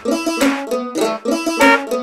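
Instrumental music from a children's song: a quick plucked-string melody with no bass or drums under it.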